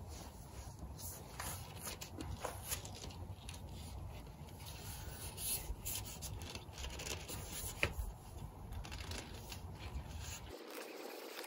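Telescopic fibreglass mast sections sliding and rubbing against each other as they are pulled out one by one, with a few light clicks.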